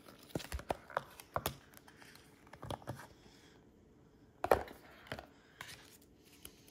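White cardboard and paper packaging of an iPhone box being handled: a run of light taps, clicks and soft rustles, with one louder knock about four and a half seconds in.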